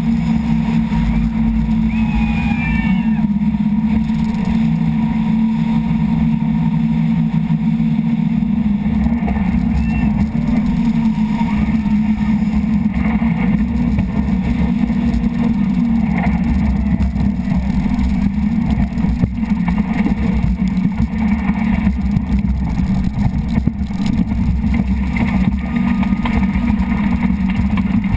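Rigid inflatable speedboat running at high speed: a steady, loud engine drone with rushing water and spray from the hull cutting through the sea.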